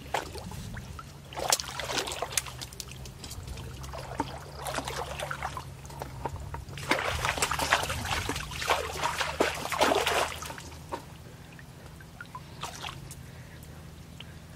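Muddy shallow water sloshing and trickling in several irregular bursts, as from someone wading and scooping in a small pool. The longest burst falls a little past the middle, over a steady low hum.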